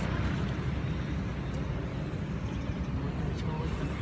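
Steady low outdoor rumble, with a few faint ticks over it.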